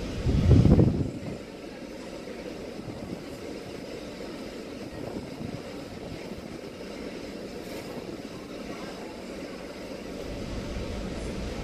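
Wind buffeting the microphone, with a loud low gust about half a second in, over a steady rush of wind and sea.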